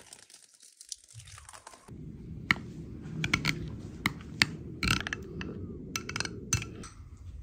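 Kitchen food-preparation sounds: sharp clinks and crunchy scraping from utensils working food, starting about two seconds in over a low rustle and stopping shortly before the end.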